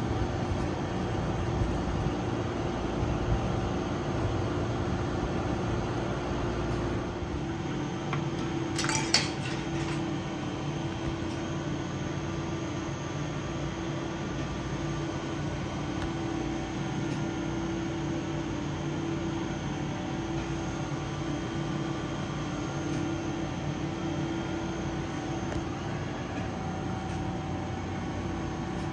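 Steady hum of refrigerated vending machines running, with one held mid-low tone. A short, sharp clink of something hard comes about nine seconds in.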